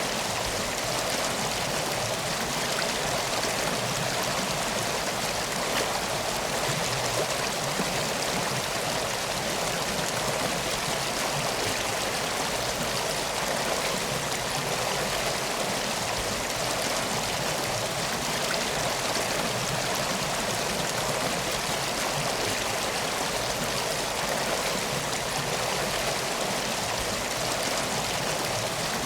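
River water flowing steadily, an even, unbroken rush.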